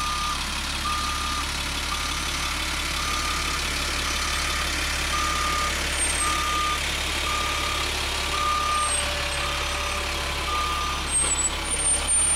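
School bus stopped with its door open, its engine idling under a warning beeper that sounds about once a second, each beep about half a second long.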